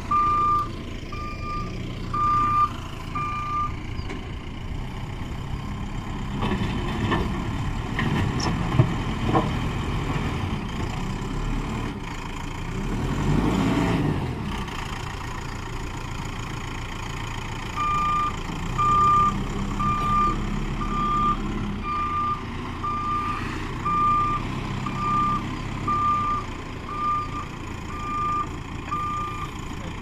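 Mahindra SX backhoe loader's diesel engine running under load as it pushes soil. Its reversing alarm beeps evenly, a little faster than once a second, at the start and again through the second half. The engine surges briefly about halfway through.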